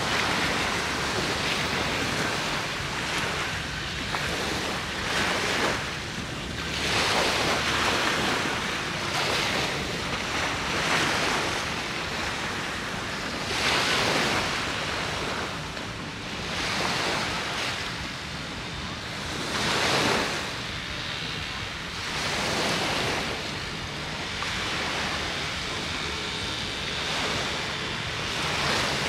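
Sea waves breaking and washing up on the shore, swelling and fading every two to three seconds, with wind on the microphone.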